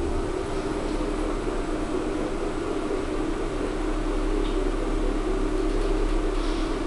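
Steady hum of a Schindler machine-room-less lift travelling downward, with a low drone under a mid-pitched tone and an even rush of air. The hum steps up slightly as the car sets off and then holds steady.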